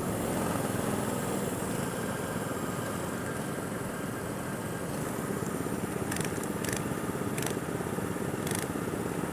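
Go-kart engine running steadily, with a few short sharp clicks in the second half.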